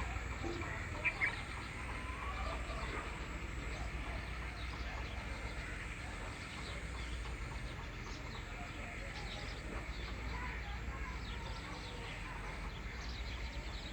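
Steady background hiss and low rumble with scattered faint bird chirps; two short clicks about a second in.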